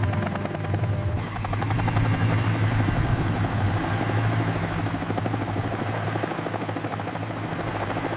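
Cartoon helicopter sound effect: a steady low hum under a fast, even rotor chop as the pup flies off.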